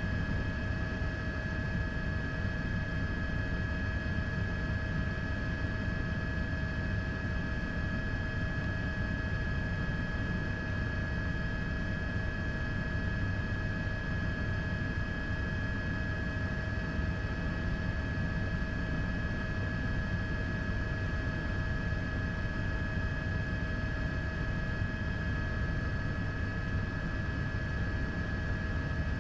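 Steady drone of an aircraft in flight: a low rumble with several constant high whining tones over it, unchanging throughout.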